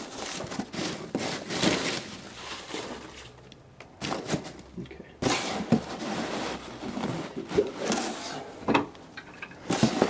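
Polystyrene packing peanuts rustling and crackling as hands push and compact them into a cardboard box, with the cardboard flaps handled and pressed down; the rustling thins out for a couple of seconds in the middle.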